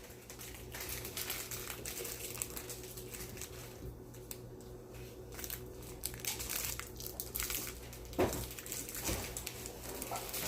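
Crinkling and rustling as something is handled, with a low steady hum underneath and a couple of soft knocks near the end.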